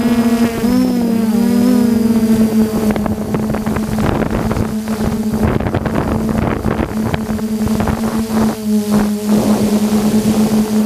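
FPV drone's electric motors and propellers humming steadily as heard from its onboard camera, the pitch wobbling briefly about a second in. From about three to eight seconds, wind rushes and buffets over the microphone.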